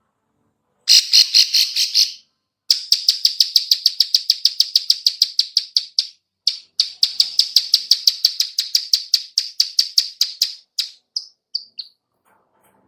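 Female plain prinia (ciblek sawah) giving its 'klik-klik' call: rapid runs of sharp, high clicks at about six a second, broken by two short pauses and slowing to a few spaced clicks near the end.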